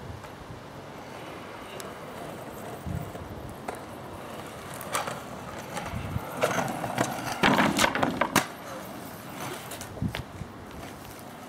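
Stunt scooter rolling on asphalt, with a run of clacks and knocks from the wheels and deck hitting the ground, loudest between about six and a half and eight and a half seconds in.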